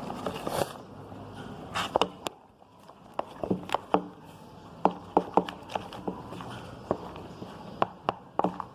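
A spoon stirring thick slime in a container, with a dozen or so scattered clicks and knocks of the spoon against the bowl.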